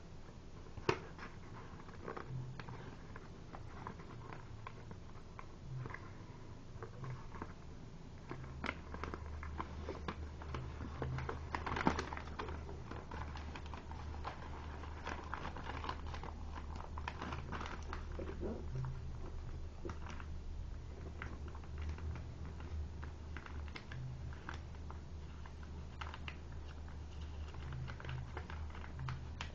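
Paper being folded and creased by hand: scattered light taps, crinkles and rustles, with a sharper tick about a second in and a louder cluster around twelve seconds. A low steady hum sets in about eight seconds in.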